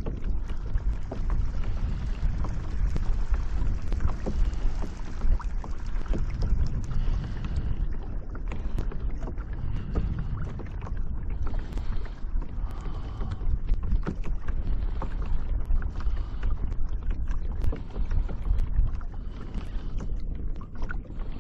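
Kayak moving across choppy water: water lapping and slapping against the hull in many small splashes, over a steady low wind rumble on the microphone.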